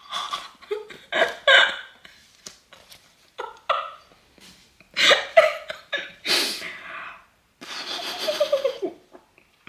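A woman's nervous vocal outbursts: short bursts of laughter and gasping breaths, ending in a longer cry that falls in pitch.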